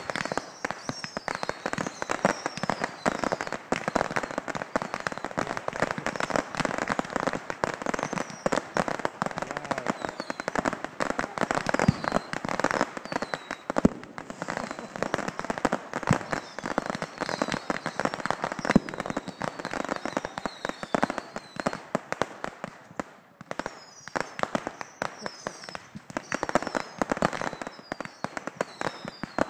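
Thousands of bottle rockets going off at once: a dense, continuous crackle of hisses and pops, with louder bangs scattered through it and short high whistles now and then.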